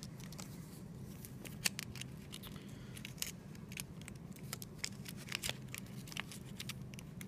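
Faint, irregular small clicks and scratches of film leader and camera parts being handled, as the end of a 35mm film leader is pushed into the slots of an SLR's take-up spool, over a low steady hum.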